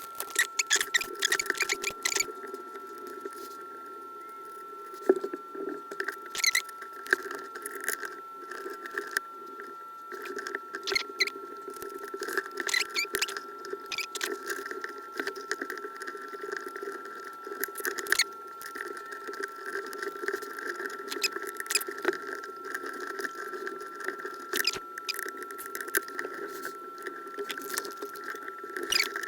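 Scattered small clicks, taps and scrapes of tiny parts and tools being handled while an iPod Classic is taken apart. They are irregular, with a few sharper ticks, over a steady high-pitched hum.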